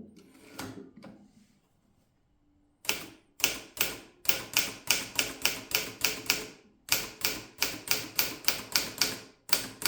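Erika model 60 manual portable typewriter being typed on. After about three seconds of quiet comes a run of sharp key strikes, about three to four a second, with a short pause partway through.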